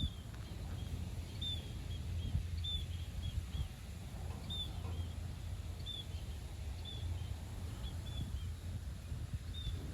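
Small birds chirping: many short, high chirps, sometimes two or three close together, over a steady low rumble.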